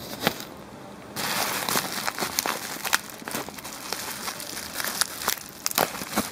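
Plastic bubble-wrap packaging being handled and crinkled, a quick run of small crackles and clicks that starts about a second in.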